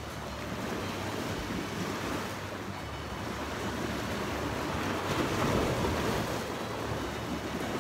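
Sea waves washing against rocks, with wind buffeting the microphone; a little louder from about five seconds in.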